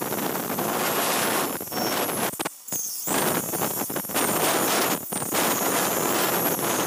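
Handheld electric circular saw running and cutting through the ends of thin bamboo slats, trimming the edge of a panel; the noise breaks off briefly after about two and a half seconds.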